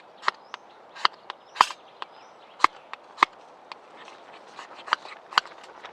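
Irregular sharp snaps and cracks of wood, about a dozen, unevenly spaced over a faint steady hiss.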